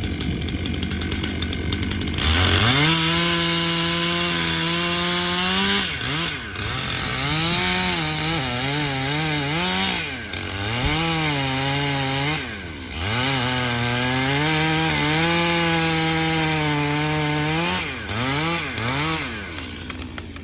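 Two-stroke chainsaw idling, then opened up to full revs about two seconds in and run through a cut in sycamore wood. Its pitch sags under load and recovers, and the throttle is eased off and opened again several times.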